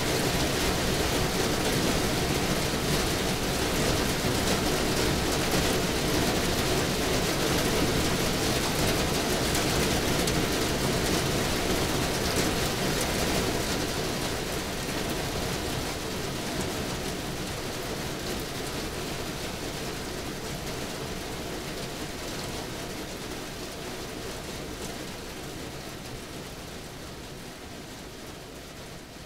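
Steady heavy rain falling, an even hiss of drops, that fades out gradually through the second half.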